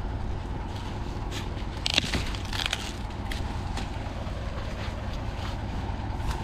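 Dry corn husks and leaves crunching and crackling in scattered sharp bits, thickest about two seconds in, over a steady low rumble.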